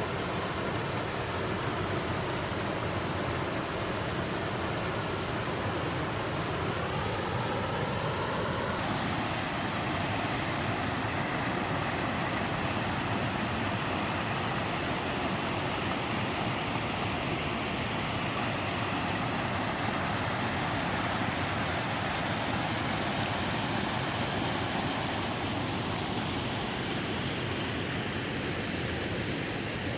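A two-tier mountain-valley waterfall, water rushing and splashing steadily, its tone shifting slightly about nine seconds in.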